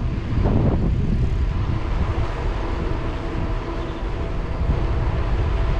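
Wind buffeting the microphone of a camera on a moving mountain bike, a steady low rumble, with faint tyre and drivetrain hum underneath.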